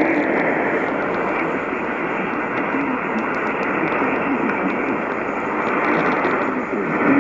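Weak radio reception: a steady rush of static and hiss, with the automated warning voice faint beneath it.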